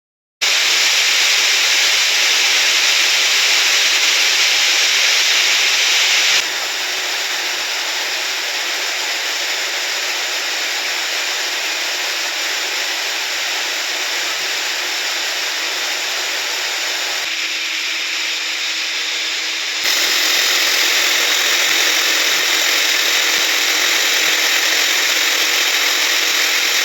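Steady, loud machine noise with a faint low hum under it. It drops abruptly in level about six seconds in and comes back up just before twenty seconds.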